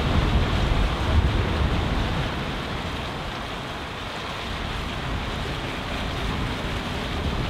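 Wind buffeting the microphone over a steady rush of water, with the Mercury 150 hp two-stroke outboard of a passing walk-around motorboat running underneath. The wind gusts are loudest in the first second or two, then ease slightly.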